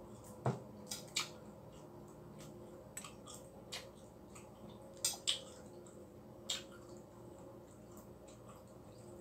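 Balut eggshell being cracked and picked off by hand: scattered small sharp crackles and clicks, the loudest about half a second in and two close together around five seconds in.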